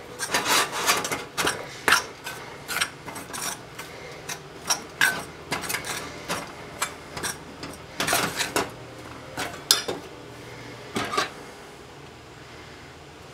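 A metal spoon scraping and clinking against a mixing bowl as powdered sugar is stirred into a little liquid to make a glaze. The strokes come in quick scrapes, thinning out near the end.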